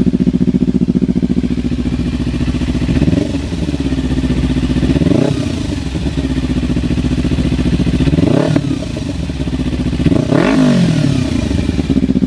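Kawasaki Ninja 300's parallel-twin engine breathing through a Hotbodies MGP Growler slip-on exhaust, idling and then revved in four short blips, at about three, five, eight and ten seconds in. Each blip rises in pitch and falls back to idle, with a real throaty sound.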